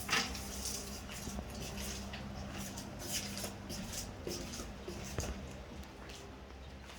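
Quiet scattered footsteps and rustling with a few soft taps, over a steady low household hum.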